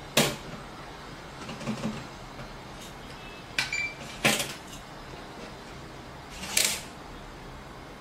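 Wooden cabinet door shut with a sharp click, then an ETEKJOY RFID electronic cabinet lock read by a key fob held to the door: a short beep and its latch clicking open. About two and a half seconds later, another sharp click and rattle as the door is pulled open.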